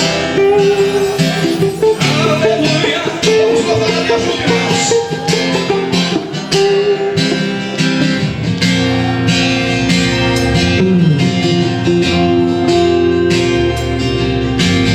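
Instrumental intro of a gospel song: guitar over a steady beat, with low bass notes coming in about halfway through.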